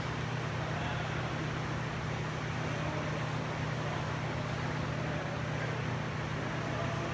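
Steady low hum with an even rushing noise, the constant room noise of a large gym hall.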